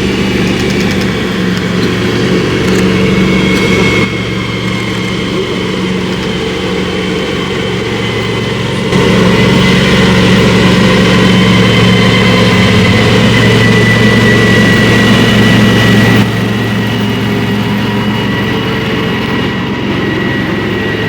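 A heavy vehicle's diesel engine running steadily with a thin high whine over it. The engine's revs rise about nine seconds in and drop back about seven seconds later.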